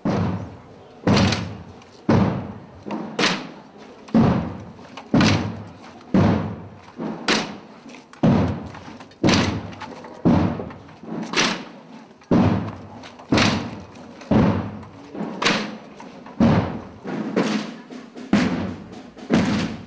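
A drum beating slowly and steadily, about one stroke a second, each stroke ringing out briefly: a slow procession beat.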